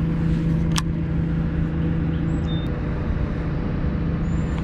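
A motor running steadily with an even low hum. A single sharp click comes just under a second in.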